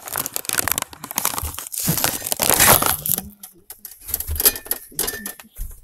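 Loud crinkling and crumpling of something being handled, a dense run of small crackles that is loudest about two to three seconds in.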